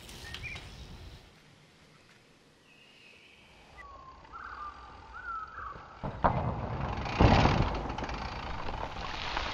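Mountain bike tyres on a loose dirt and leaf-litter trail: a sharp knock about six seconds in, then a loud rush of knobby tyres through dirt that slowly fades.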